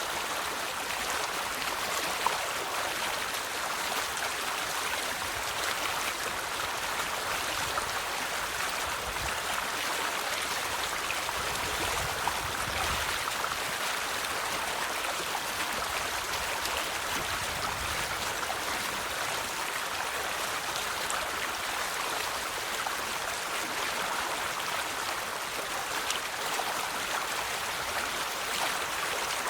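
River water flowing steadily over stones, a constant rushing and splashing with brief louder splashes here and there.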